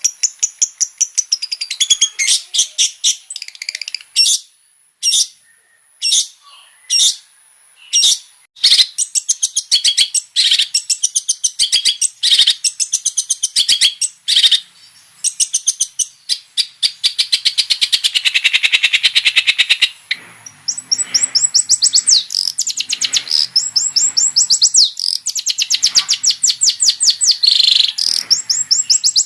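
Long-tailed shrike (cendet) in full song: fast runs of rapid high chirps and trills, broken by a few single sharp notes, then settling into long fast rattling trills. Its song is loaded with borrowed phrases from other birds.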